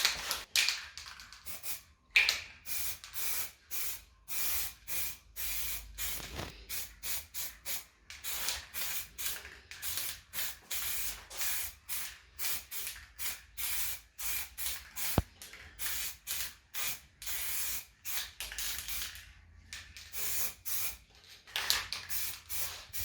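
Paint being sprayed onto a repaired plastic headlamp housing in many short hissing bursts, about one or two a second.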